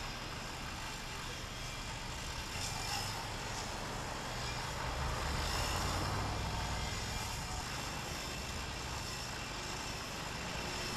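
Steady street ambience of running vehicle engines and passing traffic, a continuous low engine drone under a noisy hiss that grows a little louder midway through.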